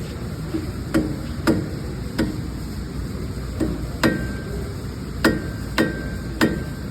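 Hammer blows on metal, about nine strikes at uneven intervals, the later ones leaving a short metallic ring. A steady low background rumble runs underneath.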